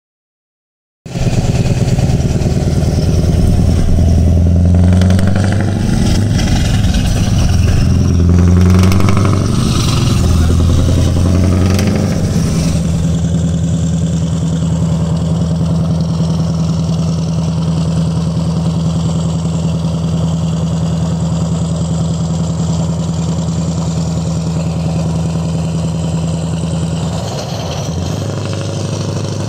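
Scania R580's V8 diesel engine heard through an open, unsilenced side exhaust pipe, running loud at motorway speed. It comes in about a second in, shifts and wavers in pitch for the first dozen seconds, then holds a steady pitch.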